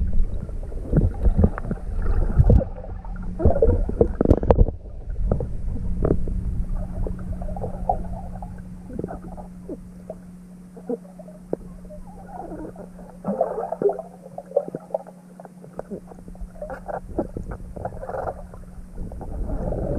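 Muffled underwater sound in a swimming pool: irregular bubbling and gurgling with scattered knocks and clicks. A steady low hum starts a couple of seconds in and runs on under it.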